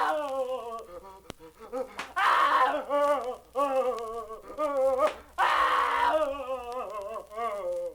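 Horror sound-effects voices moaning and wailing in long, wavering pitched cries, broken by three louder, harsher cries: at the start, about two seconds in, and about five and a half seconds in.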